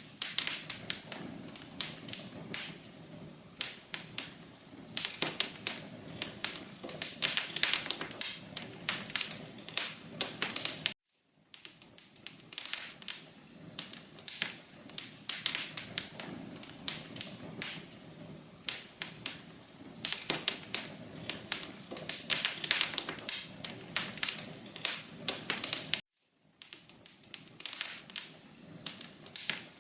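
Wood fire crackling in a fireplace: dense, irregular pops and snaps over a low hiss. The sound cuts out briefly twice, about a third of the way through and again near the end.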